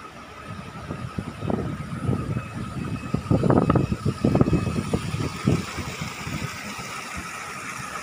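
Wind buffeting the microphone in irregular gusty rumbles that build up over the first few seconds and are strongest around the middle, over a steady faint high tone.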